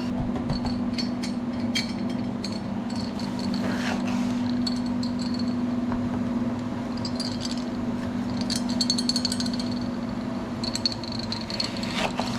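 Cooking clatter: scattered clinks and rattles of metal utensils over a steady low hum, with patches of faint high hiss.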